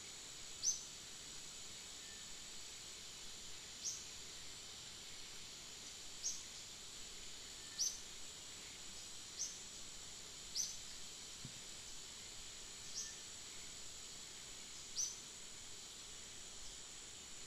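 Outdoor ambience of a steady, high insect drone, with a short, sharp, high chirp repeating every second and a half to two seconds.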